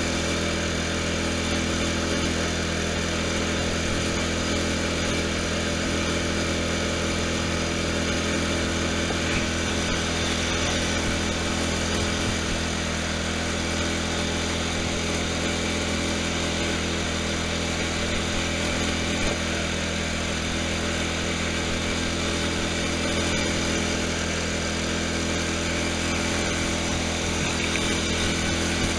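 Riding lawn tractor's engine running steadily under way, its pitch holding constant with no revving.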